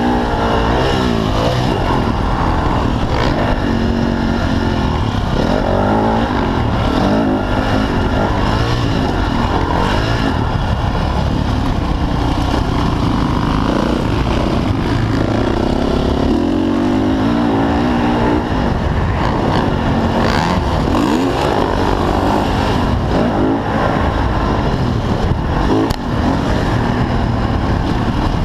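Motocross dirt bike engine heard from on board, revving up and falling back over and over as the rider accelerates, shifts and brakes around a dirt track.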